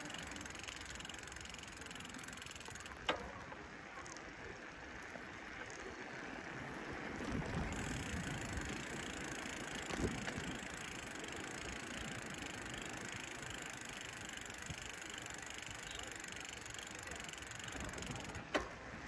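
Bicycle riding along a path: a steady rush of tyre and wind noise, with a couple of low bumps and two sharp clicks from the bike, one about three seconds in and one near the end.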